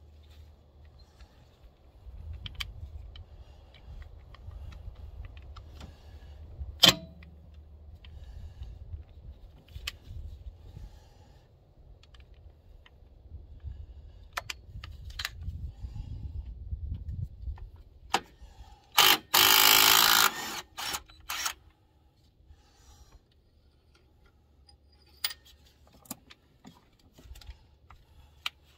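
Cordless impact wrench hammering in a few short bursts about two-thirds of the way through, loosening a bolt on the Jake brake housing of a Caterpillar 3406 diesel engine. Before that there are scattered clicks and clinks of tools and socket over a low rumble.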